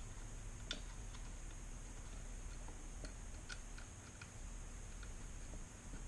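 Faint, irregular light clicks and taps from hand-threading and handling the small screws of an EGR block-off plate, over a low steady hum.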